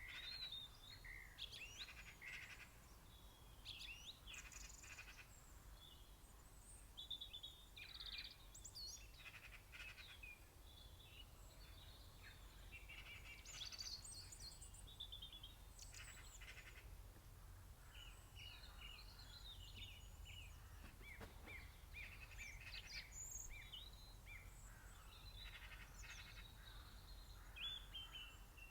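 Faint mixed songbird chorus: several birds singing and calling over one another in short chirps, trills and whistles, over a steady low background hum.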